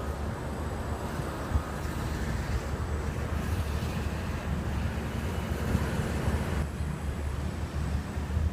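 Outdoor ambience of wind buffeting the microphone over a steady low rumble, with a faint hiss above. The sound is unbroken, with one small handling knock about a second and a half in.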